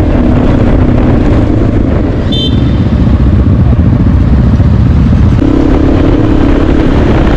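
Motorcycle engine running under way on a dirt road, with steady wind and road rumble on the helmet microphone and the engine pitch shifting as the throttle changes. A brief high beep sounds about two seconds in.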